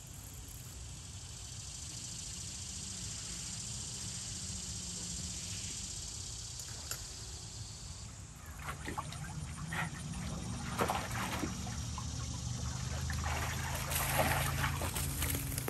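A goldendoodle puppy splashing and sloshing in a water-filled stock tank: irregular splashes start about halfway through and are loudest near the end. A steady high hiss runs underneath.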